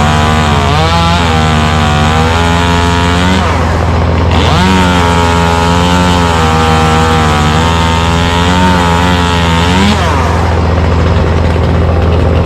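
Chainsaw running and cutting tree limbs, its pitch sagging under load and rising again as it frees, with a short break about a third of the way in and another near the end. A steady low engine hum runs underneath.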